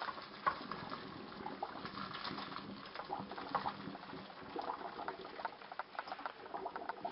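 Hot cooking water pouring from a pot of boiled macaroni into a colander in the sink, with scattered small clicks and taps.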